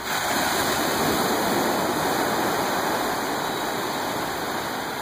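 Ocean surf: a wave breaks and washes in, a steady rush of water that swells suddenly at the start and slowly eases off.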